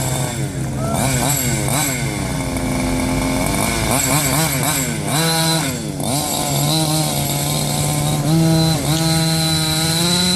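Small engine of a radio-controlled car running, revved up and down over and over with quick rising and falling pitch, settling into steadier running for stretches in between.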